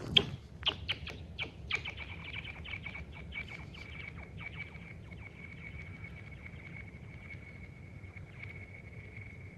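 A rock thrown onto thin, newly frozen lake ice: it lands with a sharp crack, then skips on in a run of clicks that come faster and fade. About two seconds in, the ice starts to ring with a steady, high-pitched singing tone that carries on as the rock slides away.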